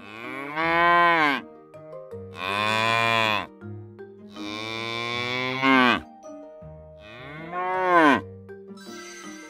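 Cows mooing: four long calls in a row, each dropping in pitch as it ends, the third the longest.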